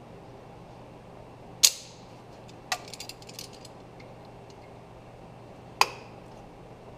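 Sharp metallic clanks of a hand tool on metal while a seized exhaust manifold stud is worked out of a Ford 351 Windsor cylinder head: one loud clank with a short ring about one and a half seconds in, a quick run of lighter clicks around three seconds, and another loud clank near the end.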